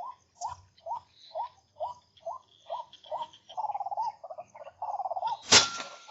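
An animal calling: short rising chirps about two a second, turning partway through into a fast warbling trill. A single sharp crack sounds near the end and is the loudest sound.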